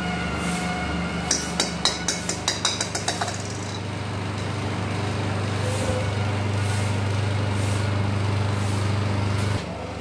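A small hollow plastic ball bouncing on a hard stone floor: about ten sharp clicks coming quicker and fainter as it settles. Under it runs a steady low hum that stops near the end.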